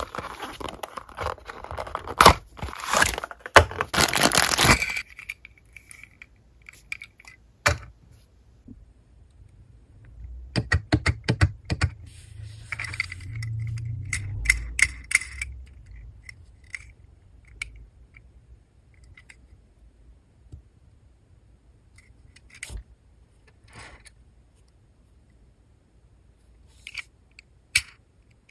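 A cardboard toy box being opened and handled, with a dense rustling scrape for about the first five seconds. Then come scattered small clicks and light metallic clinks as a Tomica die-cast toy car is turned in the fingers, with a quick run of clicks and a low rumble a little before the middle.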